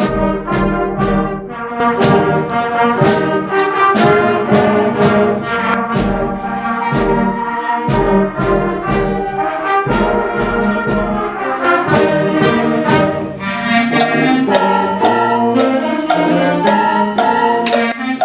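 A concert band playing, with the brass section prominent and sharp percussion strikes recurring through the music.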